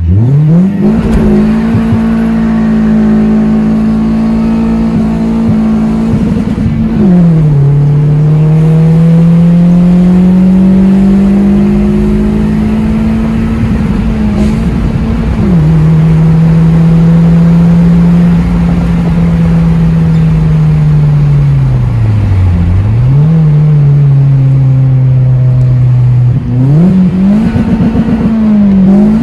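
Toyota Corolla Grande's 1.8-litre four-cylinder engine, fitted with an aftermarket downpipe and exhaust, pulling hard through the gears of its manual gearbox, heard from inside the cabin. Revs climb and hold high, drop sharply at upshifts about a quarter of the way in and again about halfway, fall away and pick up, then rise again near the end.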